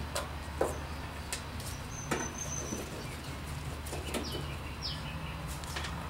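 A handful of short sharp clicks and knocks as a gloved hand works at a tight sheet-metal service cover on an air-conditioner condenser, over a steady low hum.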